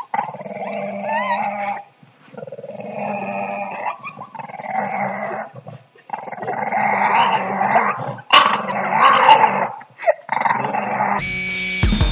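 French bulldog growling and grumbling in long bouts of a second or two with short breaks, five or six times over. Music comes in near the end.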